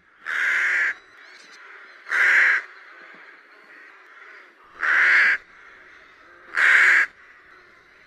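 Rook (Corvus frugilegus) cawing: four calls of about half a second each, spaced roughly two seconds apart.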